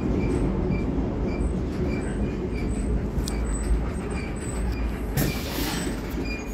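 Historic electric tram running on rails with a steady low rumble, and a faint high tone repeating about twice a second. A short burst of hiss comes about five seconds in.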